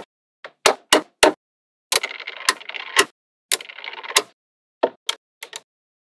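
Small magnetic balls clicking as they snap onto a magnet-ball wall: a few sharp separate clicks, then two stretches of quick clattering rattle in the middle, then several more clicks near the end.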